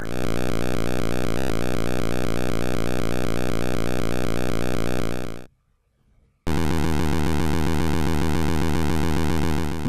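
Synthesized 8-bit style sound effect for a cartoon helicopter: a steady electronic buzz with a fast pulsing chop. It cuts off about five and a half seconds in, and after a second of silence a different synthesized buzzing starts.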